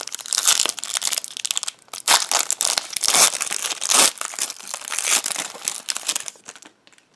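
Shiny plastic wrapper of an O-Pee-Chee Platinum hockey card pack crinkling and tearing as it is ripped open and pulled off the cards. The dense crackling stops shortly before the end.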